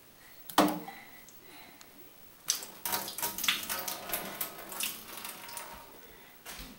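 Water splashing in a kitchen sink, with baking dishes knocking and clattering as a small child washes them. There is one knock about half a second in, then a busy stretch of splashing and clatter from about two and a half seconds in that tapers off near the end.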